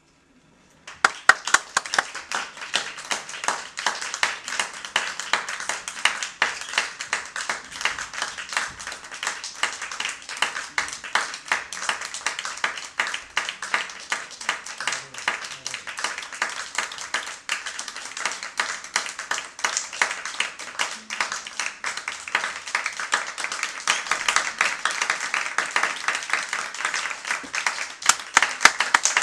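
Audience applauding, a dense clapping that starts suddenly about a second in and runs on steadily, growing a little louder near the end.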